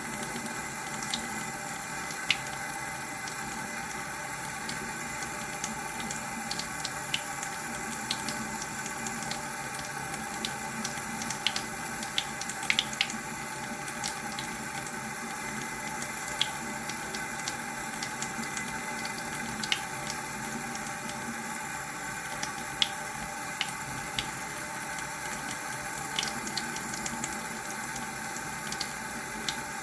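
Tap water running steadily into a sink, with scattered small sharp ticks and splashes over the flow.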